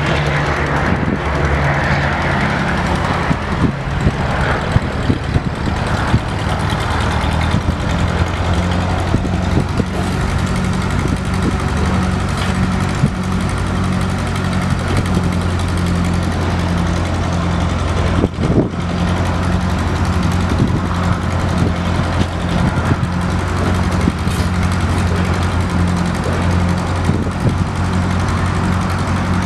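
Ford 8N tractor's four-cylinder gas engine running steadily while the tractor is driven slowly along.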